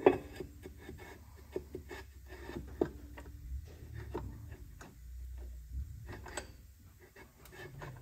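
Hands working at a small engine's open crankcase: soft rubbing with scattered light clicks and taps of metal parts, the sharpest about three seconds in and again near the end, over a low steady hum.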